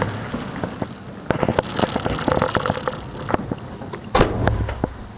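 Fireworks going off, heard close up: scattered sharp crackling pops, then one deep boom about four seconds in.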